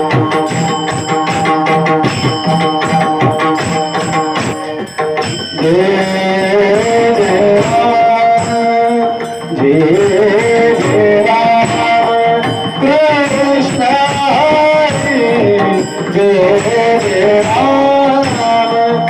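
Bhajan music: pakhawaj drumming in fast strokes under steady held tones, then from about five seconds in a melody line that slides up and down in pitch over the drumming.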